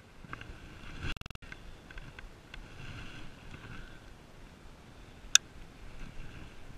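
Baitcasting reel being cranked to bring in a buzzbait, whirring in two spells, with one sharp click a little past five seconds.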